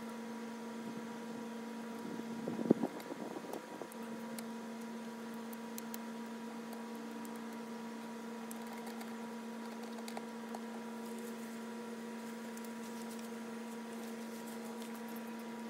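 A steady hum made of a few fixed tones, with light clicks and one sharp knock about three seconds in.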